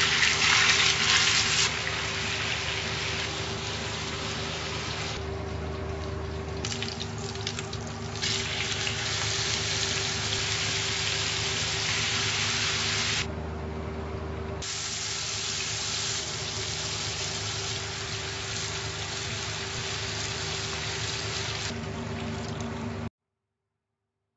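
Chicken and shrimp sizzling in hot oil in a skillet, loudest in the first two seconds as the chicken goes into the pan. The sizzle drops out briefly twice and cuts off suddenly near the end, over a steady hum.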